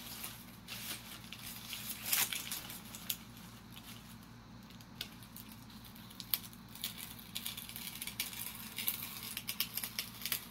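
Hobby knife blade scratching and ticking as it cuts a wing part loose from a thin balsa sheet, with light crinkling as the sheet is handled. Faint, with a run of quick small clicks near the end.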